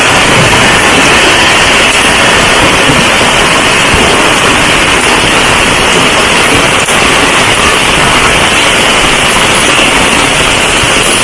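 Heavy tropical rain pouring down, a loud, steady hiss of downpour with no break.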